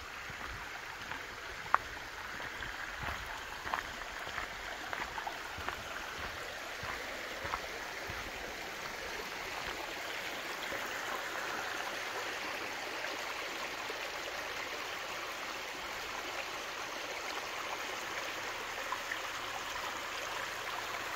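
A stream rushing steadily, growing a little louder about halfway through, with footsteps and a few sharp clicks over the first several seconds.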